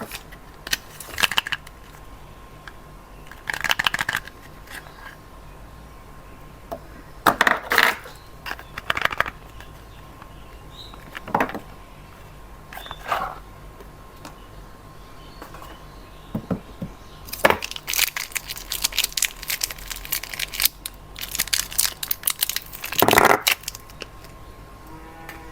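Soap bars being unpacked by hand: short, scattered bursts of crinkling and rustling from the wrappers, with a longer, denser stretch of crackling about two thirds of the way in.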